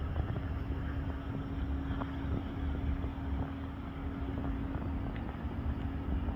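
Ford F-550's 6.7-litre Power Stroke V8 diesel idling steadily: a constant hum over a low rumble.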